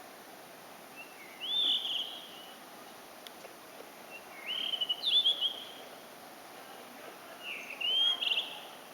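Blue-and-white flycatcher singing: three short phrases a few seconds apart, each of slurred whistled notes ending in a quick trill.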